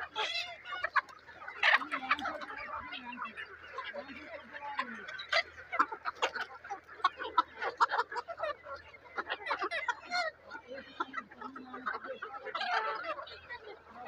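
A large flock of chickens clucking and calling, many short overlapping calls with a few longer, lower drawn-out ones among them.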